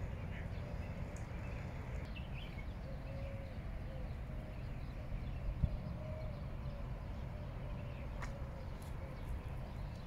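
Birds calling now and then in short calls and chirps over a steady low rumble, with a single thump about five and a half seconds in.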